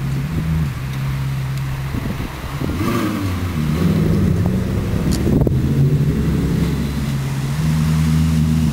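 Spyker C8's V8 exhaust as the car drives off, its note holding steady and then rising and falling a few times with the throttle. Near the end it gives way to another car's engine running at a steady, higher note.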